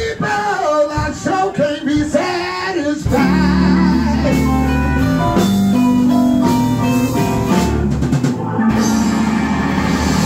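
Live blues-rock band: an electric lead guitar on a Gibson Les Paul plays bending, wavering notes and then held notes over bass and drums. About eight and a half seconds in, it swells into a dense, sustained distorted wash.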